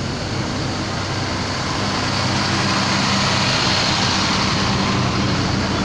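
Large tour buses' diesel engines running as the buses drive slowly past close by. The engine and road noise grow louder through the middle as the next bus comes up.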